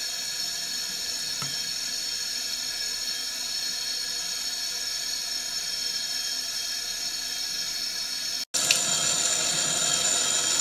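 Tap water running steadily into a sink, with a very short break about eight and a half seconds in, after which it runs on a little louder.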